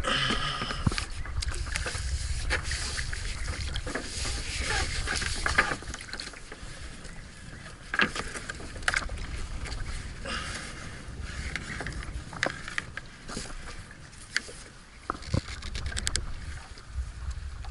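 Water splashing and lapping against a small boat's hull as the boat moves, with scattered knocks and clicks from on board and a low wind rumble on the microphone.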